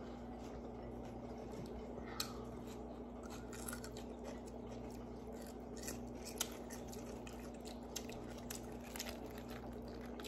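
Eating sounds at close range: soft chewing and scattered small clicks and ticks of fingers picking food off a plate, over a faint steady electrical hum.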